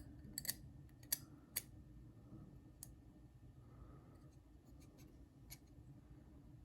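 A few faint, sharp clicks and taps of small metal pocket-knife parts being handled during reassembly: three close together in the first two seconds, then a couple more, spread out, over low room noise.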